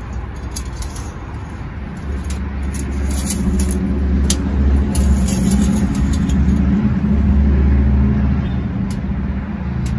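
A motor vehicle engine running, a steady low hum that grows louder over several seconds and eases off near the end.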